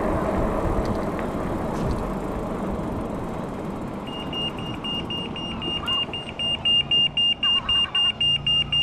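Electronic beeper sounding a steady high-pitched tone in rapid beeps, coming in about four seconds in and getting louder, at about two beeps a second near the end, over road noise that fades away.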